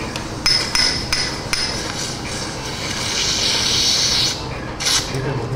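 Surgical mallet striking a metal impactor against ankle bone while driving in Kirschner wires: four sharp metallic taps about a third of a second apart, then a couple of seconds of scraping, then more taps near the end.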